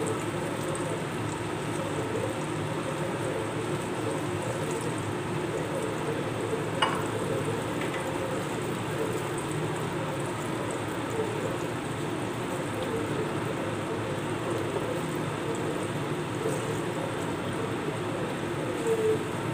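Sweet potato slices frying in hot oil in a pan, a steady sizzle, with a metal spatula knocking against the pan as they are turned; one sharp clink about seven seconds in.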